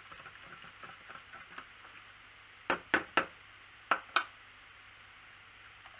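A metal spoon stirring sugar water in a small plastic cup, making light, quick ticks against the sides. About three to four seconds in come five sharper clicks and knocks as the spoon and cup are handled.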